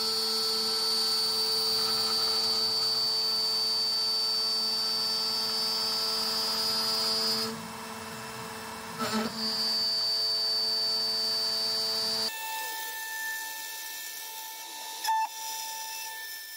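DIY CNC router's spindle driving an end mill through aluminium plate on a profile cut: a steady high-pitched whine over lower steady tones. It drops away for a moment about halfway through, returns, and then changes abruptly to a thinner, higher tone about three-quarters of the way in.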